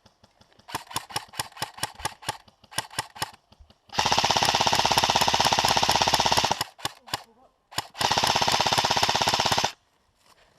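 Airsoft guns firing: a string of separate single shots, then two long rapid full-auto bursts, one about 4 seconds in and one about 8 seconds in, each lasting around two seconds, with a few single shots between them.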